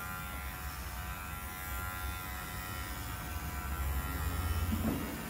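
Electric hair clipper buzzing steadily during a fade haircut, growing a little louder near the end.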